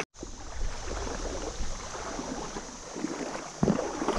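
Outdoor creek ambience: running creek water with wind rumbling on the microphone.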